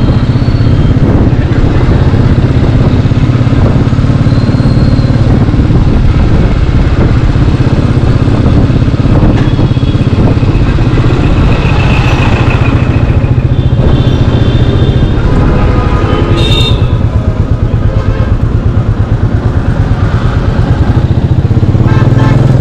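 Royal Enfield Meteor 350's single-cylinder engine running while ridden, heard from on the motorcycle as a steady low pulsing beat. The pulses stand out more clearly in the later part of the clip.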